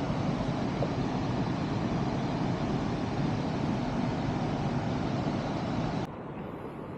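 Steady rushing of the Lower Tahquamenon Falls waterfall, which drops suddenly to a quieter, duller hiss about six seconds in.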